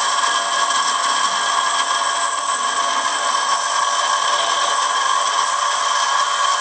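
Bench grinder running with the end of a steel arbor held against its wheel, grinding steel: a steady whine and grinding hiss.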